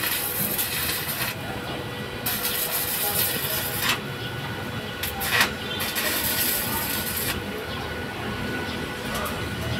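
Arc welding from a portable inverter stick welder on the underside of a van's floor: the arc crackles and hisses in stretches of a second or two, broken by short pauses, about a second, four seconds and seven seconds in.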